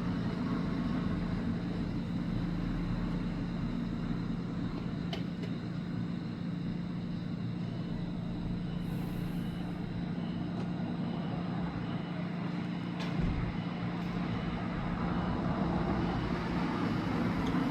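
Steady low mechanical hum with a constant drone, and a few faint clicks.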